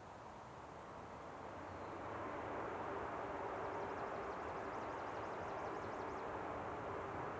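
Distant engine noise that grows over the first two seconds or so, then holds steady as a low rumble with a steady hum in it.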